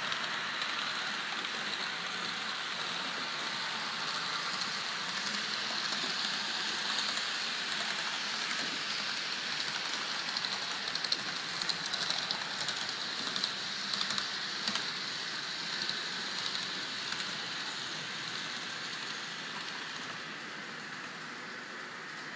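Model trains running on the layout's track: a steady whirring rattle of small wheels and motors on the rails, with a run of sharp clicks about halfway through.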